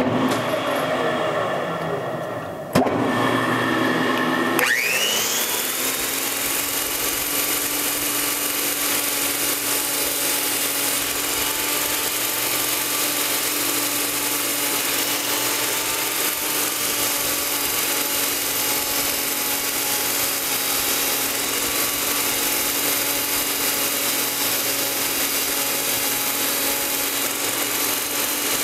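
Crankshaft belt polishing machine working the journals of a 1970 Porsche 911E crankshaft as it turns slowly in a lathe, lightly polishing the surface rather than removing material. The machine knocks and spins up a few seconds in, its pitch rising quickly, then runs steadily with a hum over an even hiss.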